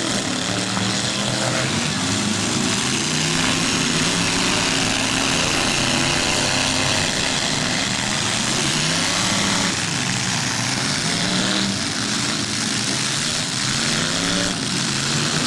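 Several demolition derby cars' engines running and revving together, their pitches rising and falling against one another over a steady background din.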